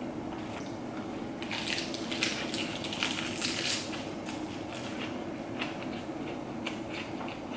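Crisp crunching of a fresh lettuce-leaf wrap being bitten and chewed. A dense run of crackles comes about a second and a half in and lasts about two seconds, then slower, sparser crunches follow.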